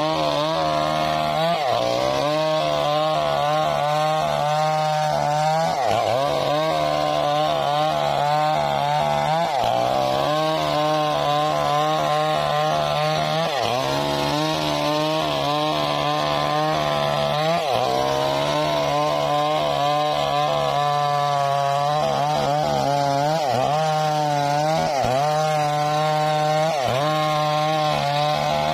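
Stihl MS 381 two-stroke chainsaw running at full throttle while cutting through a mahogany log. The engine note dips briefly under load about every few seconds and climbs back.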